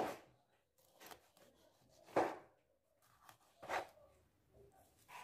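Kitchen knife slicing through a peeled orange and meeting a bamboo cutting board. There are three clear strokes about a second to a second and a half apart, with a fainter one between the first two.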